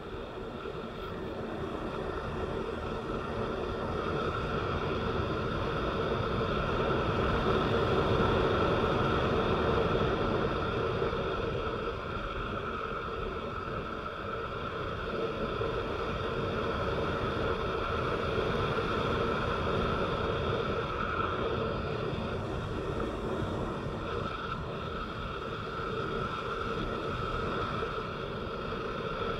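Vehicle driving on a rain-wet road: steady engine and tyre noise with a constant hum. It swells over the first several seconds and eases off a little around the middle.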